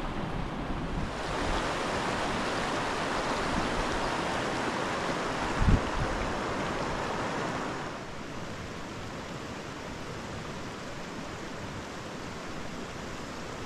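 Steady rush of running water, louder and brighter for the first several seconds, then settling lower. Wind buffets the microphone with a low rumble, and there is a single thump about six seconds in.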